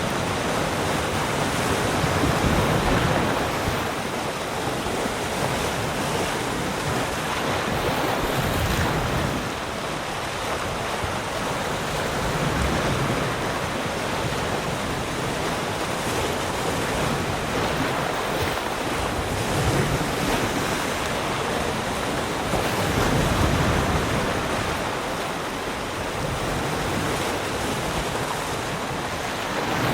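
Sea surf: waves breaking and washing ashore in a steady rush, swelling and easing every few seconds, with some wind on the microphone.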